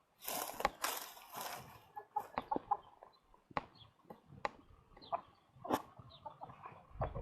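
Hens clucking in short, scattered calls, with a burst of rustling noise in the first two seconds.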